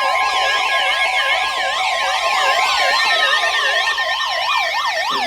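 Several electronic sirens layered together, each sweeping rapidly up and down in pitch about two to three times a second, over steady alert tones, with one slower tone gliding downward through the middle.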